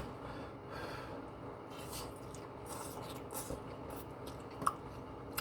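Quiet eating sounds: soft scrapes and light clicks of a fork in poutine, with chewing.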